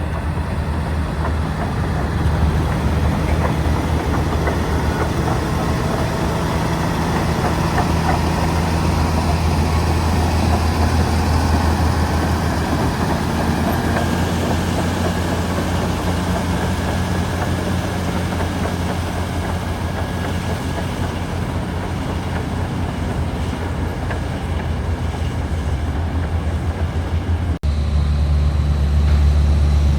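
Komatsu D275AX crawler bulldozer's diesel engine running steadily under load, with a constant low engine hum and a rattling haze from the steel tracks. It breaks off sharply near the end and resumes with a louder, deeper engine note.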